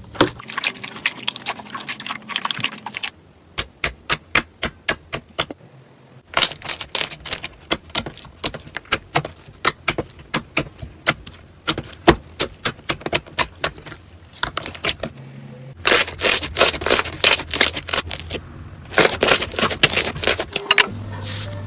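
Slime being pressed and worked by hand close to the microphone, giving runs of sharp crackling pops and clicks, several a second, in bursts with short pauses between them.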